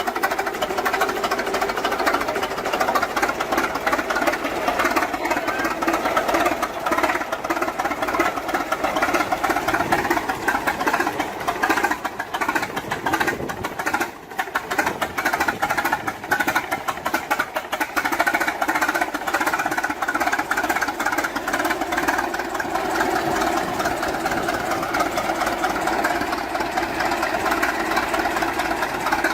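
Old machinery running with a steady, rapid mechanical clatter. It dips briefly about fourteen seconds in, then carries on.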